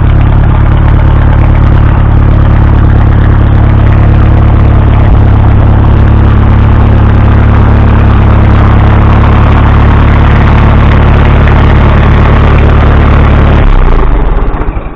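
Case 350 tractor's gasoline engine running steadily at idle through an old muffler, close up and loud. The sound drops away suddenly near the end.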